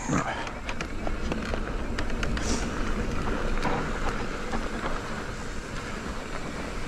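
Mountain bike riding down a dirt singletrack: tyres running over dirt and small rocks, with the bike rattling and clicking over the bumps, and wind rushing across the camera microphone.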